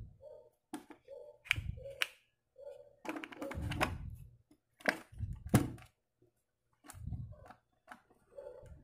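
Hard plastic clicks and knocks from a Nescafé Dolce Gusto capsule coffee machine as its top is opened and a capsule is loaded; the loudest knock comes about five and a half seconds in.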